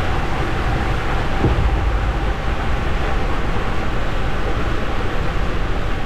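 Water rushing and a rider's body sliding fast through an enclosed tube water slide, making a steady, loud rumbling rush.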